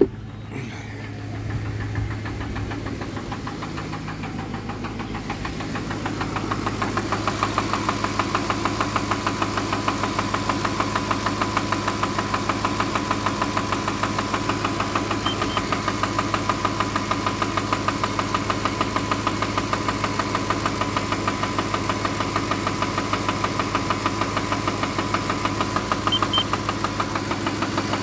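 Ford 5.4L Triton V8 idling with a steady, rapid knock, louder close to the engine from about six seconds in. The engine is warming up after a cold start on 5W-30 synthetic, and the oil pressure is low. The owner is unsure whether the knock is rod knock or something else.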